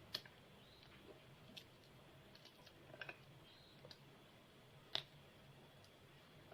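Near silence with a few faint, sharp clicks and taps spread apart, the loudest about five seconds in.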